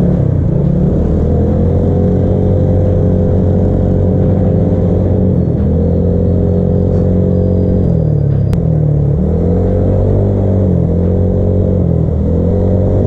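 Bored-out Honda Click scooter's single-cylinder engine running steadily under way. Its note dips in pitch about eight seconds in, wavers, and climbs back as the throttle is eased and reopened.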